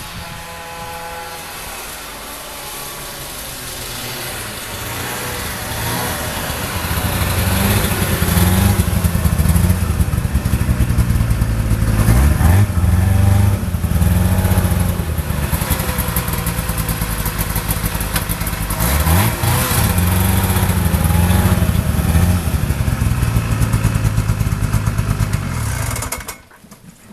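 1971 Ski-Doo Valmont twin-track snowmobile's two-stroke engine running as the sled drives past. It grows louder over the first several seconds, then runs loud with the revs dropping and climbing again twice, and cuts off suddenly near the end.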